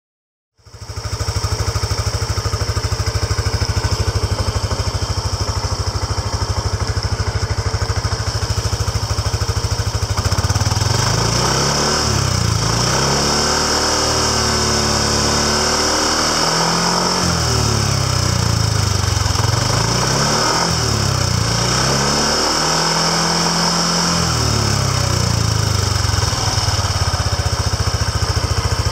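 Yamaha NMAX 125 scooter's single-cylinder engine idling steadily through its exhaust, then about ten seconds in revved several times in a row, pitch rising and falling with each blip, settling back to idle near the end.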